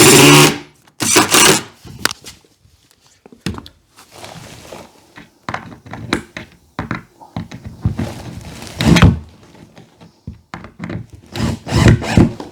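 Wooden thunks and knocks as OSB panels and two-by lumber are handled and fitted together, with a few loud short bursts: one right at the start, one about a second in, one about nine seconds in and a cluster near the end.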